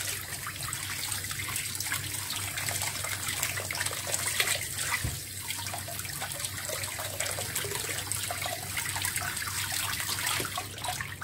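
Tap water running steadily over hands scrubbing raw potatoes and splashing into a plastic bowl of water in a sink.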